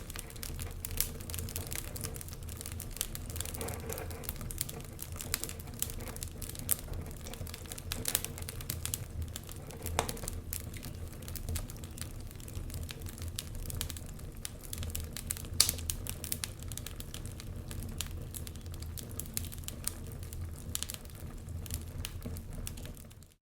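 Wood fire crackling, with irregular sharp pops and snaps over a low steady rumble. The sound fades out briefly at the very end.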